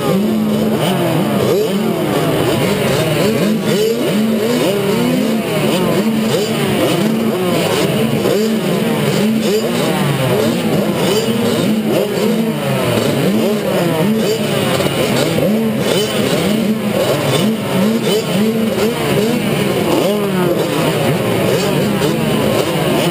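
A row of youth motocross minibikes revving at the starting gate, many engines rising and falling in pitch over one another without a break.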